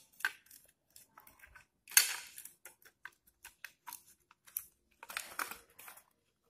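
Yellow plastic case of a digital multimeter being handled and pressed shut by hand, its snap-fit locks being closed: scattered small plastic clicks and rubbing scrapes, the loudest about two seconds in and a longer scraping stretch around five seconds.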